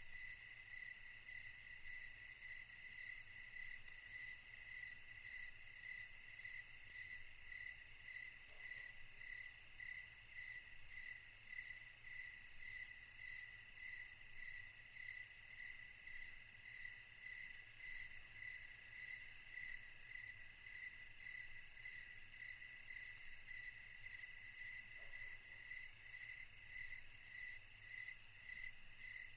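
Faint, continuous insect chorus, like crickets chirring in a rapid, even pulse, with occasional short higher chirps over it.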